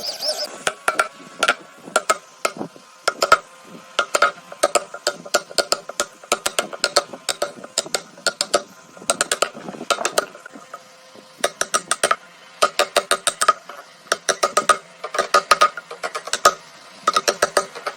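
Sharp mechanical clicking in quick bursts of several clicks each, with short pauses between the bursts.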